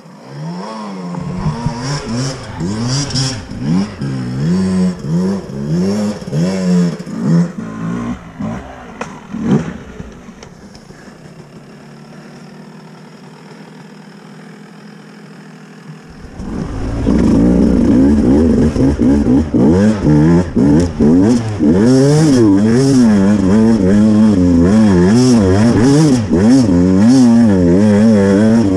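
A Beta two-stroke enduro motorcycle is ridden on a trail, its engine revving up and down with the throttle. About ten seconds in it drops to a quiet, steady low running for several seconds. Then, around sixteen seconds, it comes back loud under hard, constantly changing throttle.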